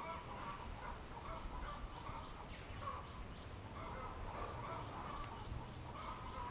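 Caged crested tit (chi chi mào, a tit of the family Paridae) calling: faint, quick clusters of short chattering notes.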